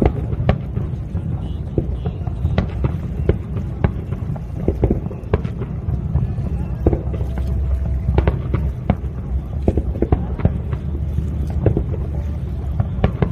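Fireworks going off in a rapid, irregular series of sharp bangs over a steady low rumble, with crowd voices mixed in.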